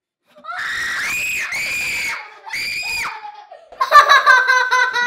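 Young girls screaming in three high-pitched shrieks as a hand goes into a tank and touches a live goldfish, breaking into laughter about four seconds in.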